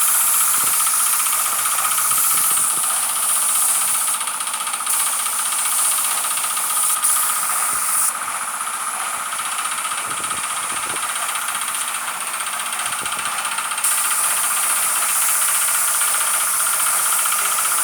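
Paint spray gun hissing with compressed air as a car body is sprayed. The high hiss drops away briefly about four seconds in, and again from about eight to fourteen seconds, before coming back.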